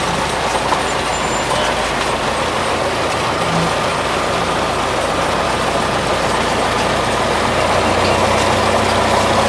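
Engine and propeller of a small single-engine plane running steadily, heard inside the cabin as a dense, even drone; a low steady hum comes in near the end.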